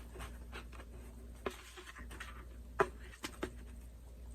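A few light clicks and knocks of things being handled, with a brief soft hiss about a second and a half in and a sharper knock near the end. A low steady hum runs underneath.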